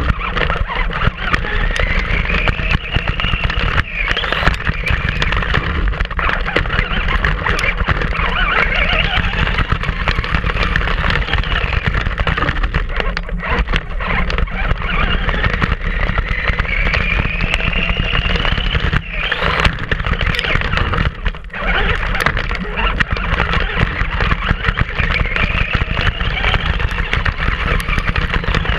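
Onboard sound of a Traxxas Grave Digger RC monster truck driving over grass and dirt. Its motor and gears whine, rising and falling in pitch with the throttle, over a steady rumble of tyres and wind on the truck-mounted camera. Frequent knocks come from the chassis bouncing over bumps.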